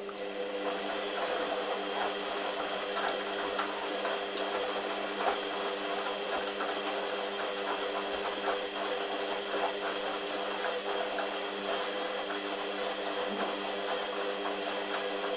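Hoover washing machine running: a steady motor hum that comes on right at the start and holds, with light irregular clicking over it.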